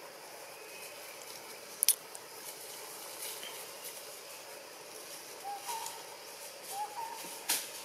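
Steady outdoor hiss with a sharp click about two seconds in and another near the end, and a short rising-then-falling animal call heard twice in the last few seconds, about a second and a half apart.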